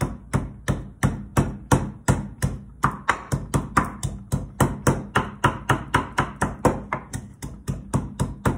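Wooden pestle pounding garlic cloves and shallot in a wooden mortar: a steady run of knocks, about four to five a second.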